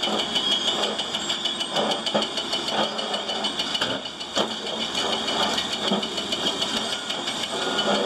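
Heavy machine's engine running steadily with a fast rattling clatter, and a few sharper knocks about two, three and four and a half seconds in.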